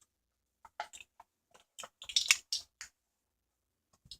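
Teaspoon scooping borax powder and tapping against its container, a series of short scrapes and clicks clustered about two seconds in.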